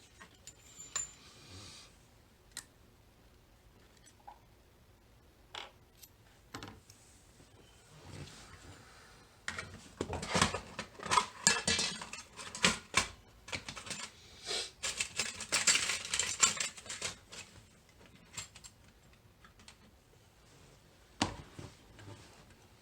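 Small metal clicks, taps and scraping from tools working on a Mul-T-Lock Interactive cam lock as it is taken apart. The clicks are scattered at first, then become a dense run of clicking and rattling from about ten to seventeen seconds in.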